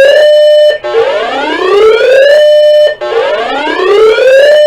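Broadcast emergency alert tone: a buzzy whooping siren that rises in pitch, holds one note briefly and cuts off, repeating about every two seconds. It plays before a severe thunderstorm warning is read.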